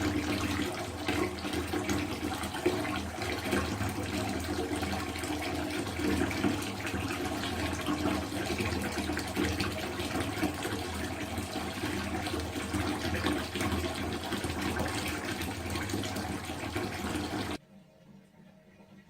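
Falling water splashing steadily, so many drops that they merge into a continuous trickle. It stops abruptly near the end, leaving faint room tone.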